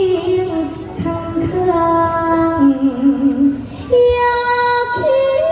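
A woman singing a Thai song over instrumental backing, holding long notes and adding vibrato to them.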